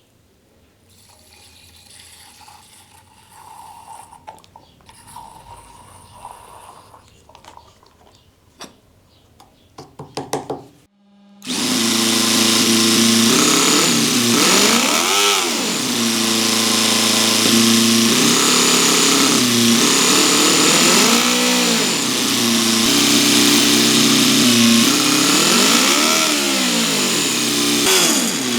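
Toyan FS-B400 miniature four-cylinder boxer model engine: after faint small clicks and a short burst of rapid clicks, it starts abruptly about eleven seconds in and runs loudly and steadily. It is revved up and back down three times.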